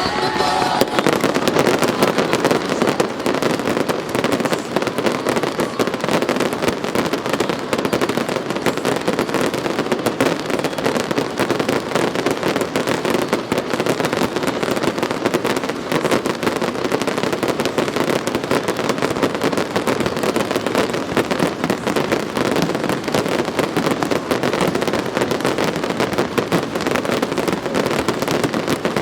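Fireworks display in full barrage: a dense, unbroken stream of crackles and sharp reports with no let-up.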